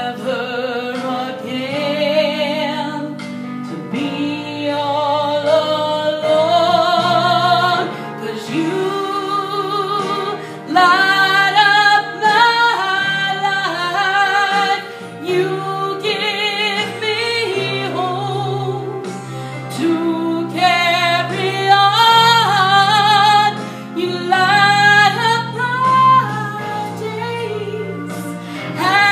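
A woman singing into a handheld microphone, long held notes with vibrato, over sustained instrumental accompaniment.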